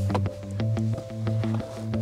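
Background music: a bass line and held melody notes over a steady beat.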